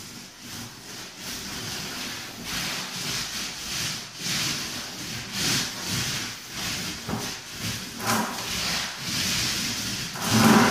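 Paint roller on an extension pole rolling paint onto a wall in repeated strokes, a rubbing hiss that swells and fades with each pass. It is loudest for a moment near the end.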